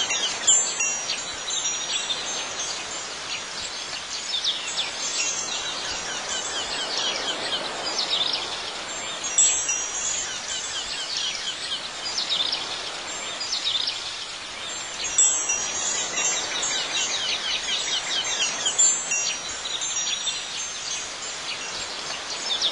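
Wind chimes tinkling now and then over a continuous background of high, rapid chirping, like a nature-ambience track.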